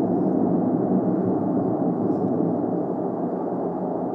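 ATR 72-500 twin turboprop's Pratt & Whitney PW127 engines and propellers running in a steady drone as it rolls along the runway, easing off slightly near the end.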